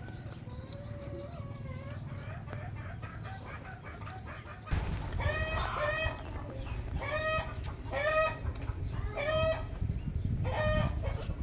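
An animal calling: short, pitched calls repeated about once a second, starting about five seconds in, with faint high chirps before them.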